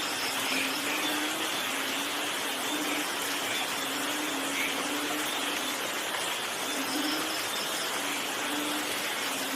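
Steady rain falling, an even hiss with no thunder, and a faint low tone that comes and goes in short stretches.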